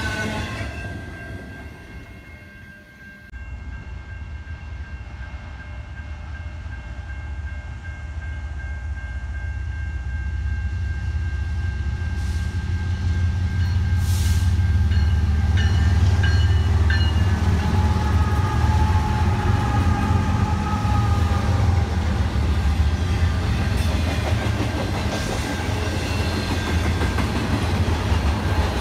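A freight train's horn sounds and trails off in the first two seconds. After a brief dip, the low rumble of diesel locomotives grows as a train approaches; it is loudest from about halfway through and stays loud as the train passes.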